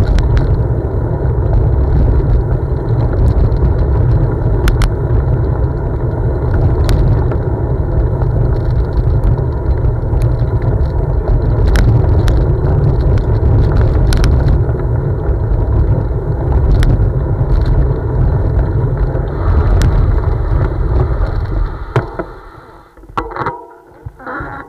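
Steady rumble of wind buffeting the microphone and tyres rolling on a gravel path as a Focus Mares cyclocross bike is ridden along, with scattered sharp clicks. The rumble dies away near the end as the bike slows to a stop.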